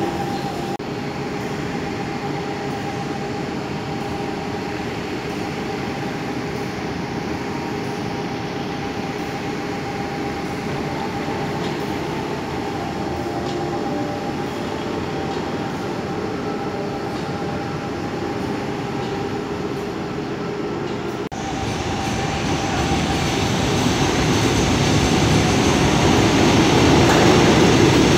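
Buenos Aires Subte Line B metro train in an underground station: a steady hum with a held whining tone, then a train moving along the platform, growing steadily louder over the last several seconds.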